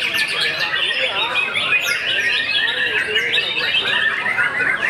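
Many caged white-rumped shamas singing at once: a dense, unbroken chorus of quick, overlapping phrases that rise and fall in pitch.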